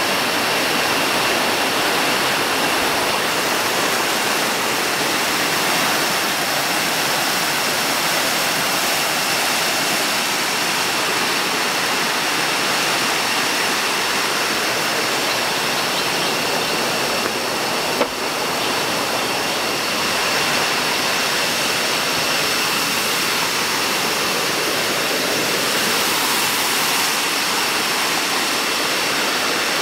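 Klong Plu waterfall: water falling and rushing in a steady, even roar, with a faint steady high-pitched tone running above it. There is a single brief click about eighteen seconds in.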